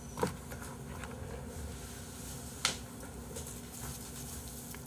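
Soft handling sounds of a perilla-leaf bossam wrap being folded by hand, with two short sharp clicks, one just after the start and a sharper one a little past halfway.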